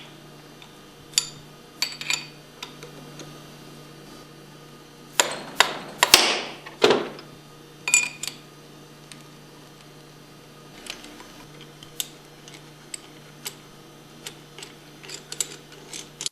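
Allen wrench and steel bolts clinking as the bolts are backed out of a Hypro pump's discharge manifold: scattered sharp metallic clicks, with a louder run of clattering and scraping about five to seven seconds in.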